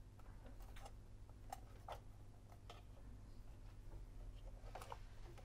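Faint, scattered small clicks and taps as hands handle small metal parts on a record player's sheet-metal chassis, about five over a few seconds, over a low steady hum.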